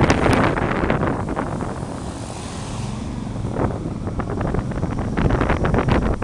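Wind buffeting the microphone of a camera on a moving motorbike, with the sound of the bike and passing traffic underneath. The buffeting eases for a second or so in the middle, then picks up again.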